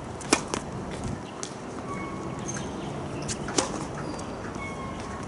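Tennis ball struck hard with a racket twice: a serve right at the start and a return swing about three and a half seconds in, each a sharp pop, with softer ball bounces between.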